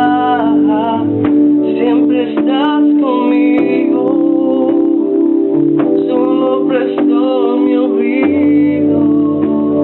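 A voice singing a Spanish worship song in held, gliding notes over instrumental accompaniment of sustained chords that change every second or two.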